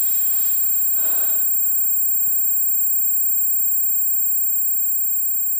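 A steady, high-pitched electronic sine tone, held unbroken like a ringing in the ears. Faint traces of a fading voice come in the first couple of seconds.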